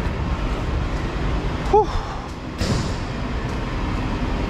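Steady low vehicle rumble in a truck service bay, with one short squeal about two seconds in.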